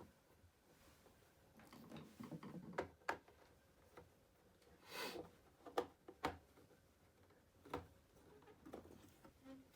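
Scattered light clicks and taps of hard plastic parts from a Roomba 780 robot vacuum being handled while it is taken apart, with a short scrape about five seconds in.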